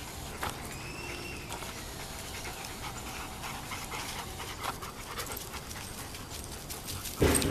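Big pit bull panting steadily in quick, repeated breaths, with one loud thump near the end.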